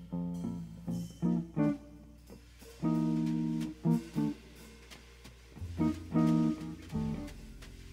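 Hollow-body archtop guitar improvising a slow blues: short plucked notes and chord stabs, with a few chords left ringing for about a second.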